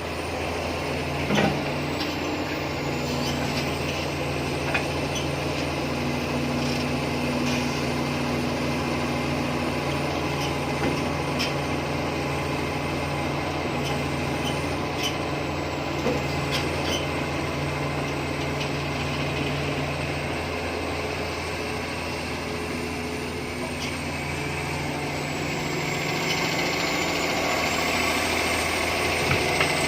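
Heavy diesel engine of earthmoving machinery running steadily, its note shifting slightly as the machine works, with a few faint short knocks.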